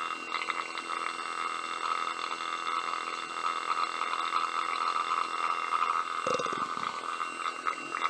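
Water boiling in a beaker inside an evacuated vacuum chamber, bubbling and gurgling over a steady hum. The reduced pressure has lowered water's boiling point. A deeper gurgle comes about six seconds in.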